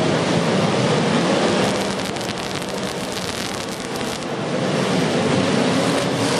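Demolition derby cars' engines running loudly in a dense, steady noise.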